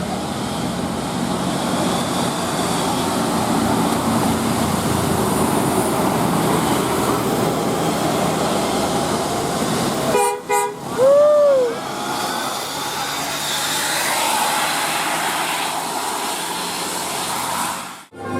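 Busy street and vehicle noise, then about ten seconds in a short blast of a bus's multi-tone telolet basuri musical horn: a few quick stepped notes, then one note that slides up and back down in pitch.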